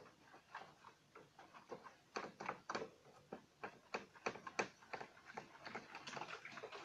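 Irregular light clicks and knocks, several a second, from a bamboo raft and its bamboo pole as a man leans on the pole pushed into the river bottom.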